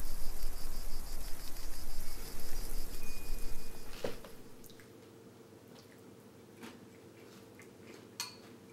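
Night woodland ambience: a steady hiss with insects trilling in fast even pulses. About four seconds in it cuts to a quiet room with a faint steady hum and a few light clinks of a metal spoon in a ceramic cereal bowl.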